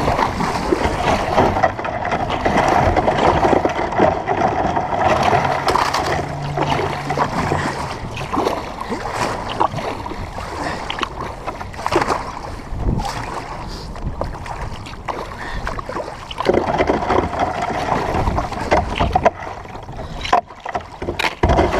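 Wilderness Systems Tempest 170 sea kayak being paddled through a river with floating ice: a steady rush and splash of water along the hull, broken by many short knocks and splashes.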